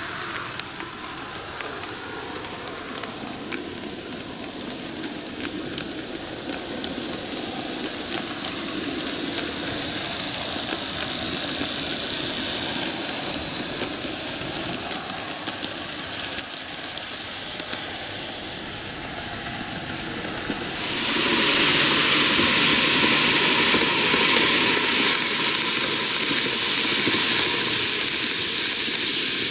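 N gauge model trains of Keihan 1000 series and 7200 series electric cars running on plastic canted track: a steady rolling hiss and fine rattle of the small wheels and motors. It grows gradually louder and becomes much louder and brighter about 21 seconds in.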